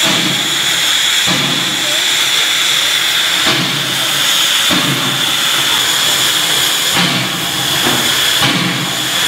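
Northern Pacific No. 924 steam locomotive venting steam low at the front around its cylinders: a loud, steady, high hiss. A lower rumbling sound swells and fades underneath it several times.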